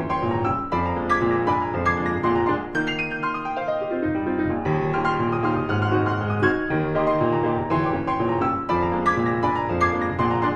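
Piano music playing at a steady level, a continuous stream of notes with several sounding together.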